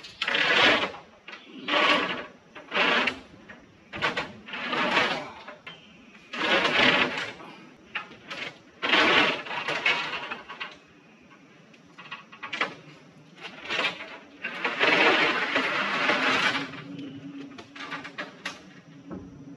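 Plywood roof decking sheet dragging and scraping over hardware cloth in a series of scrapes, each a second or so long, with short pauses between them as the sheet is pushed into place.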